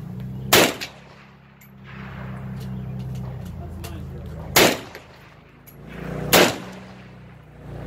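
Three shots from an SKS semi-automatic rifle in 7.62×39mm: one about half a second in, then two more near the end, about two seconds apart.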